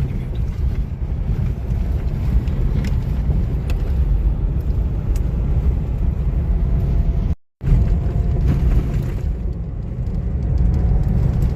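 Steady low rumble of a car driving, road and engine noise with a few faint clicks. It breaks off briefly to silence about seven and a half seconds in, then resumes.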